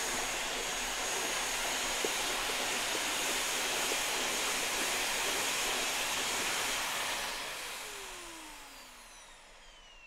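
Vacuum cleaner running with its floor head on a parquet floor, a steady rushing of air and motor. About seven seconds in it fades away, its motor whine sliding down in pitch as it winds down.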